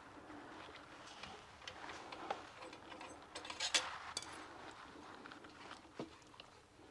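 Hand tools working the bolts on the rear plate of an electric motor: scattered small metal clicks and taps, with a louder cluster of clicks a little past halfway and a single sharp click near the end.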